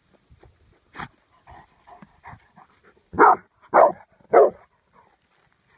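Rottweiler barking three times in quick succession, each bark short and a little over half a second apart. A single sharp knock comes about a second in.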